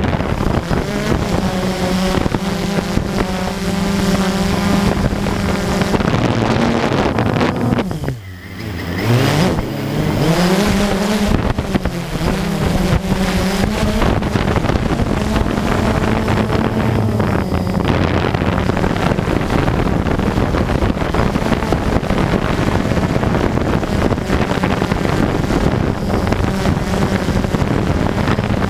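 Blade drone's electric motors and propellers whining steadily over a rush of wind noise. About eight seconds in, the motors briefly slow, the pitch dropping sharply, then glide back up to a steady whine.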